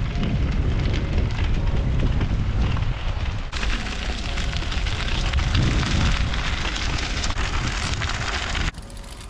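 Tyres of a Brompton folding bike rolling over gravel, a steady crackling crunch mixed with wind rumble on the microphone. The sound changes about three and a half seconds in and drops away abruptly near the end.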